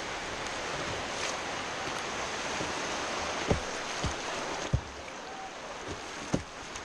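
River water rushing steadily over a shallow riffle around a kayak's bow. Four short, sharp knocks come in the second half, the loudest about five seconds in.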